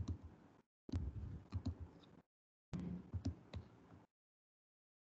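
Faint computer-mouse clicks, about half a dozen over the first four seconds, over a low hiss that cuts in and out.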